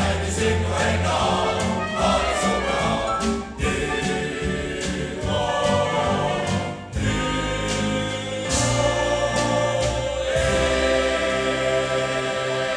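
Male voice choir singing a Norwegian-language song in harmony, ending on a long held chord from about ten seconds in.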